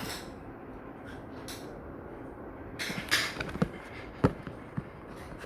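A brief rustle about three seconds in, then three or four sharp knocks or clicks, the loudest a little after four seconds in, over a low room background.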